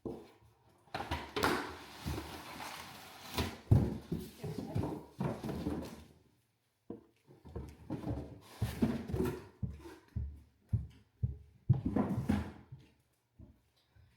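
Irregular knocks, scrapes and rustling of things being handled, with brief quiet gaps.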